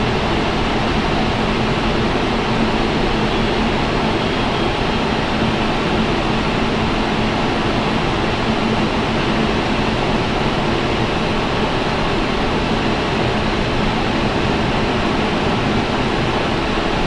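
Steady rushing noise inside an airliner's flight deck on final approach: airflow and engine noise with a faint, even hum underneath.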